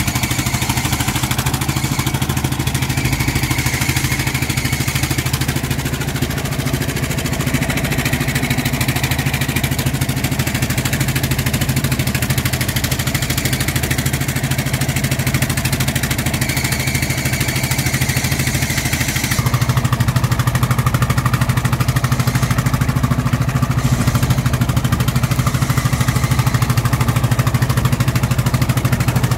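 Fishing boat's engine running steadily. About two-thirds of the way through its sound shifts, getting a little louder and less hissy.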